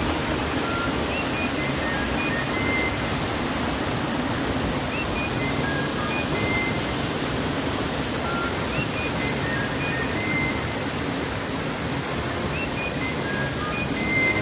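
Mountain burn rushing and cascading over rock ledges in small falls: a steady hiss of white water, with faint high notes of music over it.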